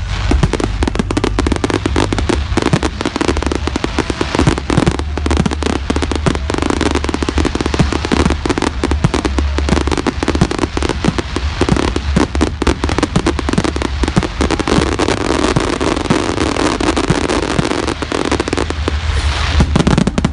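Fireworks display going off in a rapid, unbroken barrage of bangs and crackles.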